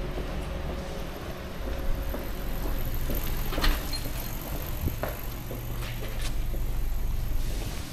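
Street ambience with a motor vehicle's engine running close by: a steady low hum that swells and then drops off near the end. A few sharp clicks and knocks sound over it, the loudest about halfway through.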